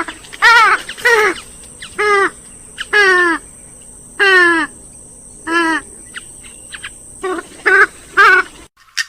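Swamphen calling: a loud run of about a dozen short calls, each one sliding down in pitch, some in quick twos and threes with short gaps between. The calls stop suddenly near the end, followed by a single click.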